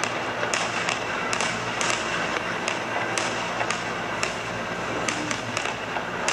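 Fireworks crackling and popping: a quick, irregular run of sharp cracks over a steady hiss, with music faintly underneath.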